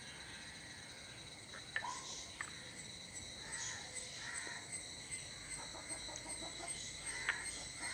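Faint sounds of hands kneading soft homemade flour-dough clay in a glass bowl, with a few sharp taps against the glass. The loudest taps come a little under two seconds in and a little after seven seconds.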